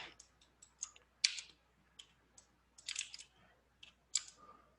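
Scattered clicks of a computer mouse and keyboard keys, about a dozen, irregularly spaced, with a few louder ones.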